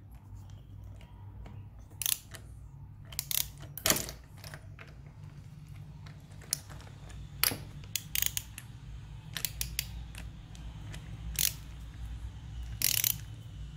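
Scattered metallic clicks and clinks as a 17 mm spark plug socket and a wrench are fitted and worked onto a motorcycle spark plug, over a low steady hum.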